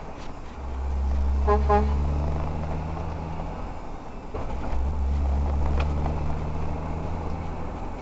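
Engine and road drone inside a moving car, dipping briefly twice as the car picks up speed. About one and a half seconds in there are two quick toots of a car horn.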